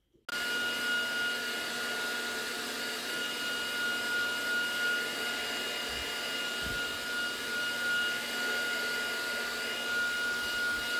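Hair dryer switched on just after the start and running steadily: a rush of blown air with a constant high motor whine.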